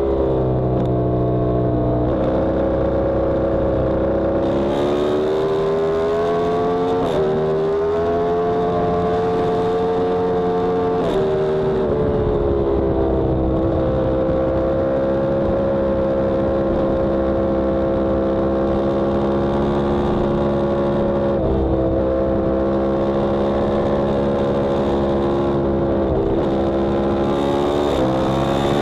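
Yamaha R1M's crossplane inline-four engine at speed on a track lap, heard from a camera on the bike with wind rush. Its pitch falls near the start, climbs for several seconds with a gear change about seven seconds in, falls again at about eleven seconds as the throttle is rolled off, then holds fairly steady with a couple of short dips near the end.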